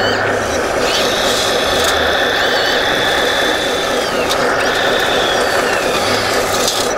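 Radio-controlled model truck at work: a high whine starts about a second in, holds for a couple of seconds, and comes back twice more, over a steady engine-like running sound, with people talking.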